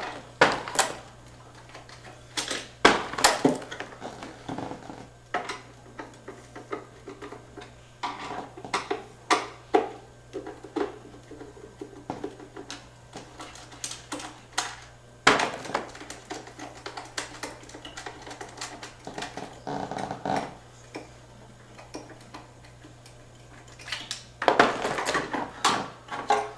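Irregular clicks, knocks and light clattering in clusters: a screwdriver working the screws of an Xserve's front shipping guard, and the guard being handled and lifted off the server.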